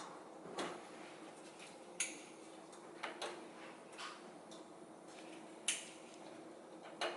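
Faint scattered clicks and light knocks, about seven spread over several seconds, over a low steady hum.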